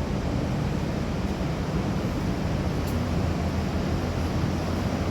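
Steady low rushing hum of air-conditioning and ventilation equipment running.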